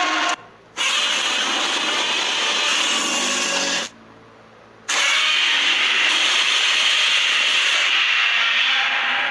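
Harsh, noisy monster roar sound effect in three long sections, cutting off abruptly twice: once briefly, about half a second in, and once for about a second near the middle.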